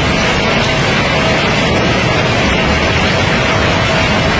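River pebbles pouring down a concrete chute: a loud, steady, dense rattling rush of stones, with a thin steady tone running under it.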